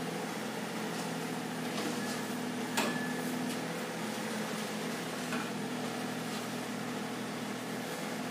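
SANY SY35U mini excavator's diesel engine running steadily as it is unloaded off a lorry, propped on its bucket. A single sharp knock comes a little under three seconds in.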